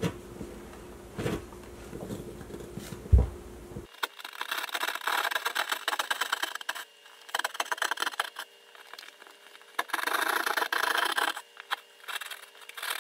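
Hand drywall jab saw rasping through drywall in quick back-and-forth strokes, in several bursts, cutting out an opening for a low-voltage box. Before the sawing starts there are a few light knocks and a sharp thump about three seconds in.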